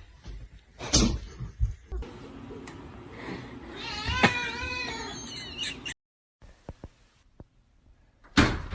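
A cat meowing: a few knocks, then one long, wavering, drawn-out meow near the middle.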